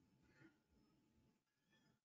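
Near silence: faint background room tone.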